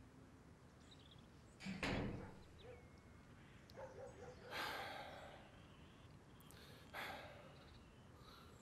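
A wooden door thuds shut about two seconds in, followed by a few soft rustling swishes.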